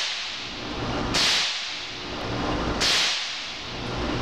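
Ruger 10/22 semi-automatic .22 LR rifle firing single aimed shots about every second and a half, each sharp crack followed by a short echo off the indoor range lane.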